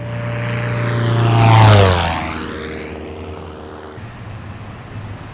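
Airplane engine flying past, growing louder to a peak under two seconds in, then dropping in pitch and fading as it goes away. The engine tones cut off about four seconds in.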